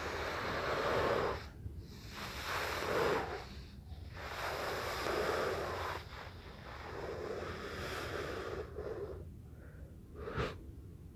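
Matrix-style slow-motion whoosh sound effects, played quietly: about five long rushing swells of noise with short gaps between them, then one short sharp whoosh near the end.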